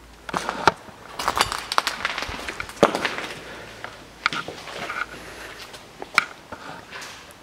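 Footsteps crunching over debris on a gritty floor, with irregular sharp clicks and knocks, the loudest about three seconds in and about six seconds in.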